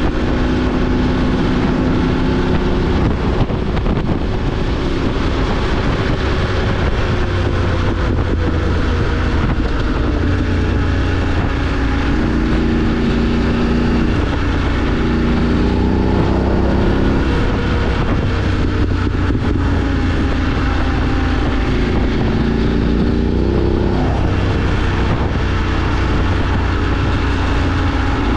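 BMW F 850 GS Adventure's parallel-twin engine running under way, its note rising and falling several times with throttle and gear changes, over a steady rush of wind and road noise.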